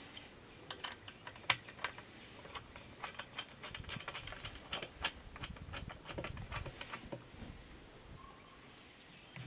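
A quick, uneven run of small sharp clicks and taps lasting about six seconds, from hard parts being handled and fitted by hand.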